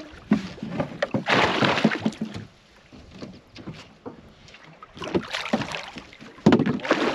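Hooked northern pike thrashing at the surface against the boat's side, splashing water in several bursts: about a second in, and again from about five seconds to the end.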